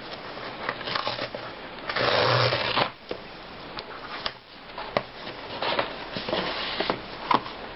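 Cardboard book mailer being opened by hand: its tear strip ripped off in one long rip about two seconds in, followed by rustling, scraping and clicks of the board envelope being handled and pulled open.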